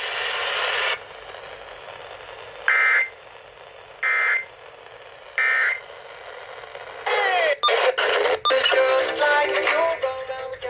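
Emergency Alert System end-of-message code played through a radio: three short bursts of shrill digital data a little over a second apart over faint static, closing the Required Monthly Test. From about seven seconds in, clicks, a pitch sweep and snatches of other stations follow as the radio is tuned across the band.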